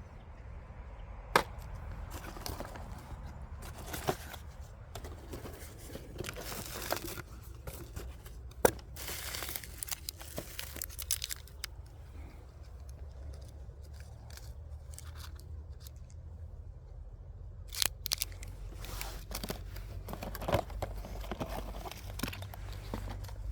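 Diecast model car packaging being handled and torn open: irregular tearing and crinkling with several sharp clicks and taps, and a quieter stretch in the middle.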